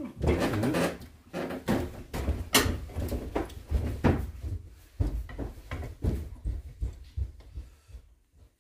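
Irregular knocks and thumps on wooden boards: a person getting up from a low table on a wooden porch and walking off, growing fainter near the end.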